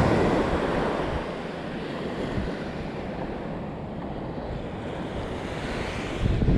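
Small waves washing onto a sandy beach, with wind rumbling on the microphone. The wash is loudest at the start and fades over the first second or so, and a low gust rumbles near the end.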